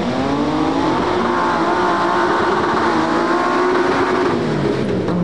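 Four-wheel-drive competition truck's engine revving hard: the pitch climbs over the first second, holds at high revs, then drops off near the end.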